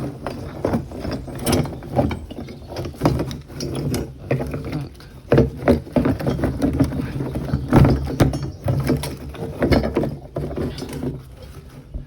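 Containers being handled and moved about: irregular knocks and clatter, over a steady low hum.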